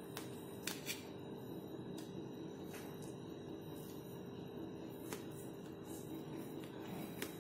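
A knife cutting through cooled lapsi in a steel plate, with a few light clicks where the blade meets the steel, over a faint steady hum.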